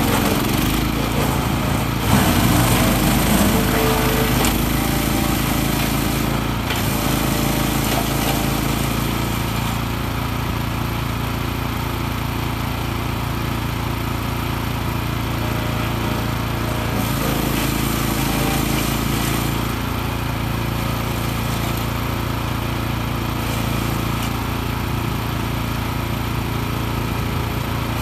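PRO-14HP wood chipper's 14 hp engine running steadily under load while it chips branches fed into its chute. The chipping is busiest and loudest in the first few seconds and swells again briefly past the middle.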